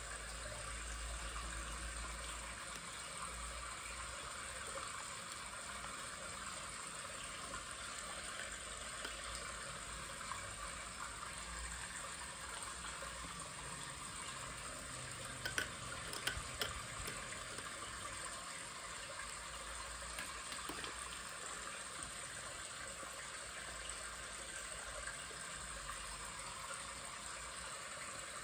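Steady hiss of background noise, with a short cluster of light clicks about halfway through.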